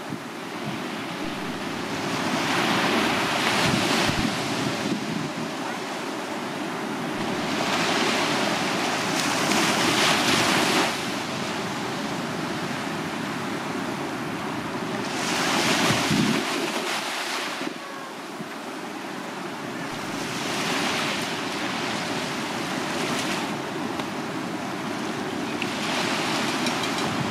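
Small waves breaking and washing up a sandy beach, the surf swelling into a louder rush about every five to six seconds.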